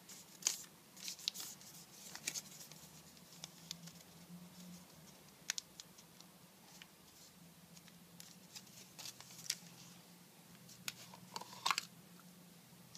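Origami paper being folded and creased by hand: irregular crinkles and sharp crease clicks, loudest about half a second in and again near the end.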